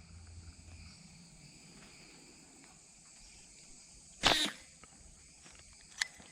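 A slingshot shot about four seconds in: a brief loud whoosh as the arrow is released. Insects drone steadily and faintly behind it, and there is a sharp click near the end.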